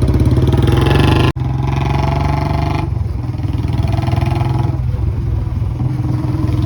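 Royal Enfield Bullet motorcycle's single-cylinder engine running under way, with a loud, steady exhaust beat. The sound breaks off abruptly about a second and a half in, then carries on.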